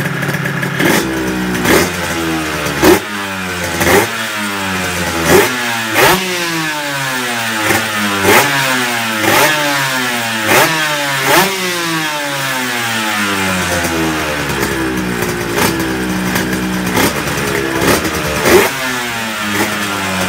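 Honda NSR250's 250 cc two-stroke V-twin, with expansion-chamber exhausts, blipped over and over from idle. Each blip is a sharp rev spike that falls quickly back. The spikes come about once a second, with a pause of a few seconds around the middle.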